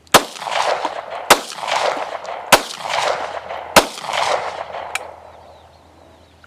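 Gen 4 Glock 17 9 mm pistol firing four shots about a second and a quarter apart, each followed by a long echo, then a faint click about five seconds in.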